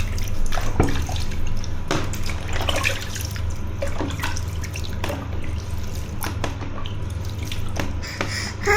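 Bath water splashing in irregular short splashes over a steady background of running water.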